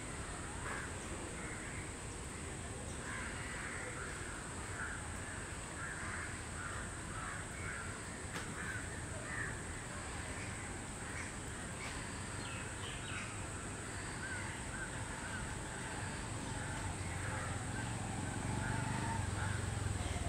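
Birds calling over and over in short, crow-like caws, over a steady high-pitched hiss. A low rumble grows louder near the end.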